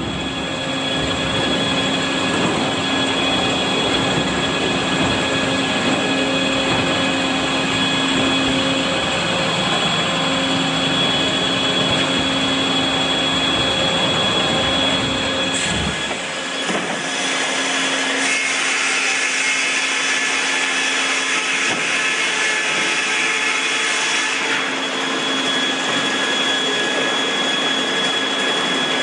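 Cooper short-log overhead sawmill with vertical edgers running steadily: circular saw blades spinning and motors running, with a steady high whine over the machine noise. About halfway through, the deep rumble drops away and the noise turns thinner.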